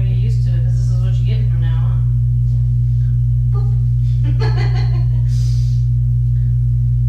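Kittens mewing in short high calls, a few in the first two seconds and a louder cluster about four to five seconds in, over a loud steady low electrical hum.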